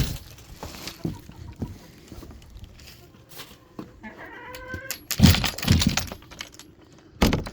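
An animal's single drawn-out cry about four seconds in, followed by several heavy thumps.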